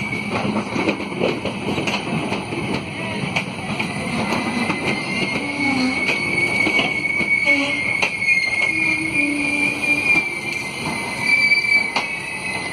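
Passenger coaches of an arriving express train rolling slowly past, with a steady high-pitched squeal and irregular sharp clicks from the running gear.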